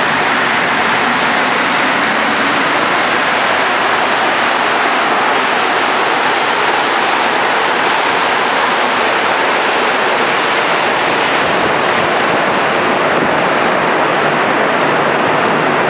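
Montreal MR-73 rubber-tyred metro train pulling out of the station and running past, a loud, steady rush of rolling noise; the hiss thins slightly near the end as the train goes into the tunnel.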